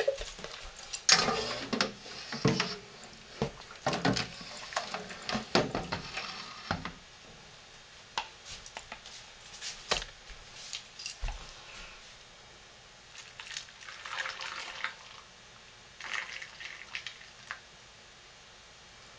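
Lotion being squeezed from a squeeze bottle's nozzle into jars: wet squirting and sputtering, with clicks and knocks of the jars and bottle being handled. The handling is busiest in the first seven seconds, and two more short squirts come near the end.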